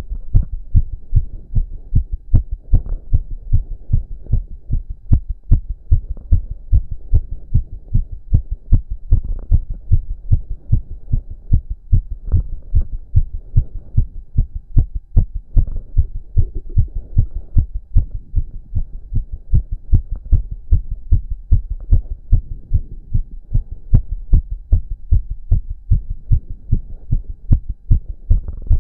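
A man's heart beating fast and strongly, raised by exercise: a steady run of deep, evenly spaced thumps, about two a second.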